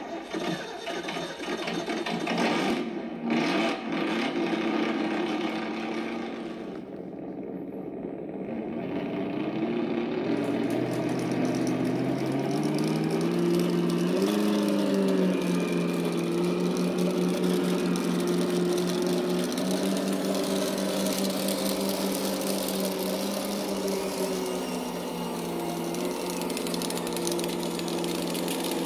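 Simulated diesel engine sound from a Sense Innovations ESS One sound module in an RC model tractor, still playing a stock sound file not yet matched to this tractor. It starts abruptly with a few knocks about three seconds in, then runs with its pitch climbing midway and holding steady. A higher hiss joins under it about eight seconds in.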